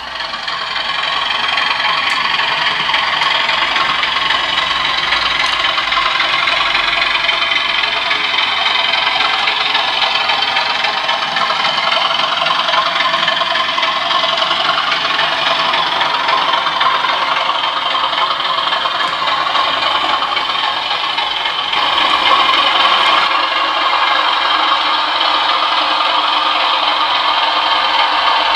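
Sound-fitted 00 gauge model of a Class 37 diesel locomotive: its ESU LokSound decoder plays a South West Digital recording of the English Electric diesel engine running as the locomotive hauls its train, through the model's small speaker. The model wagons rattle over the track, and the sound is briefly louder about two-thirds of the way through.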